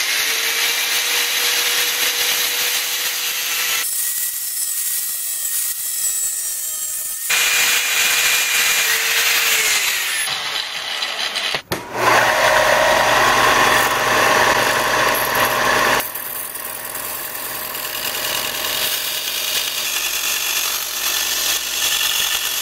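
Angle grinder with a cutoff wheel cutting through thin 25-gauge sheet steel, its motor whine falling as it spins down about ten seconds in. From about twelve seconds a belt sander runs and grinds the freshly cut steel edges.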